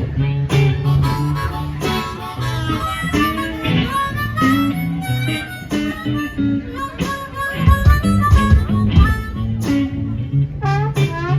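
Live band music: a lead line with bending, sliding notes over a steady bass line, with heavy low drum hits partway through.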